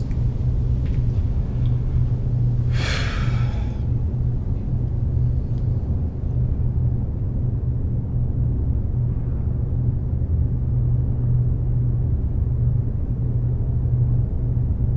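Steady low rumble throughout, with a short scraping hiss about three seconds in as a heavy steel door is pushed open.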